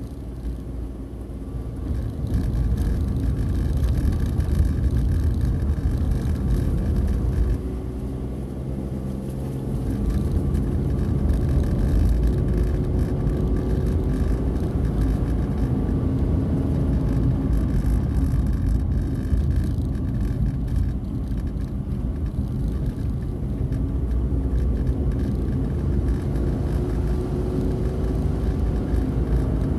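Car engine and road noise heard from inside the cabin while driving, a steady low rumble with the engine note rising and falling; it eases off briefly about a third of the way in.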